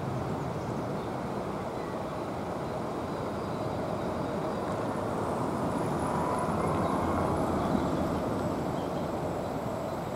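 Level crossing's classic electric warning bell ringing continuously while the crossing is active, over the growing rumble of an approaching train that gets louder from about halfway through.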